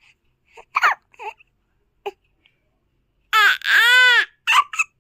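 A young child crying: a few short vocal catches, then one long loud cry that rises and falls in pitch, and two short sobs after it.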